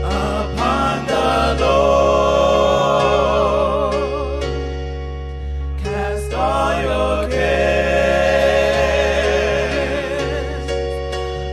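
Gospel song: several voices sing with vibrato over sustained electronic keyboard chords, with a brief drop about halfway through.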